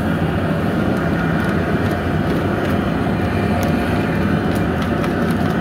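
High-pressure propane burner under a crawfish boil pot running with a steady, loud, low rumbling noise, the water in the pot at a rolling boil.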